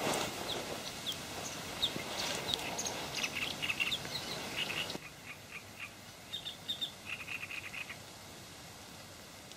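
Small birds chirping and twittering in quick, short calls, with a brief rustle right at the start. Everything drops in level about halfway through, the chirps carrying on more faintly.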